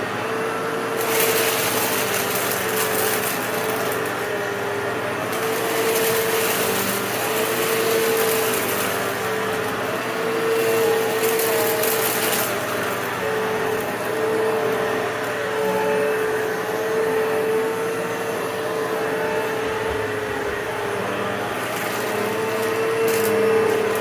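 Upright vacuum cleaner with a 12-amp motor running with a steady whine, with several stretches of added hiss and rattle of a few seconds each as it picks up test debris.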